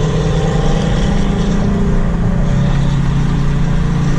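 Car engine running steadily through a loud exhaust.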